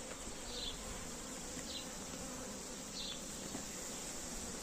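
A honeybee swarm humming steadily, heard close up beneath the cluster, with a few short, higher buzzes now and then.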